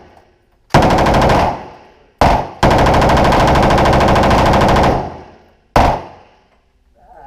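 Fully automatic firearm fired in bursts: a short burst, a brief pair of shots, a long burst of about two and a half seconds, then a last quick shot near the end. Each burst trails off in echo.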